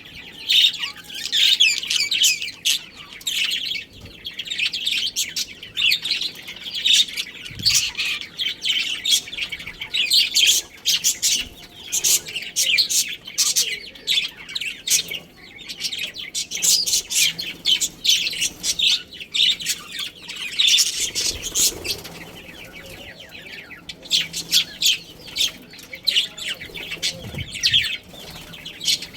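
Budgerigars chirping and chattering in quick, dense runs of high chirps, with a short lull about three quarters of the way through.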